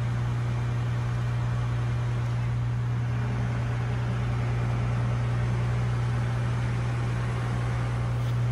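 Steady engine-room machinery drone: a strong low hum under an even hiss.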